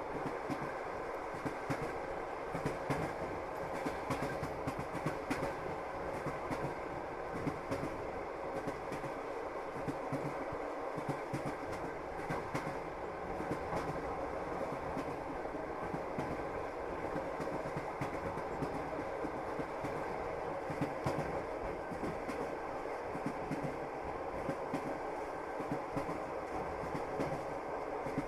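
Moving train: the wheels clatter over the rails, a steady running noise broken by many irregular clicks and knocks.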